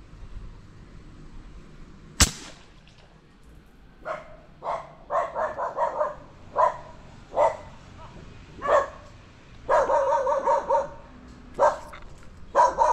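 A single sharp crack about two seconds in: a shot from an Indo Tactical Predator PCP air rifle firing a pellet. From about four seconds in, a dog barks repeatedly in short bursts.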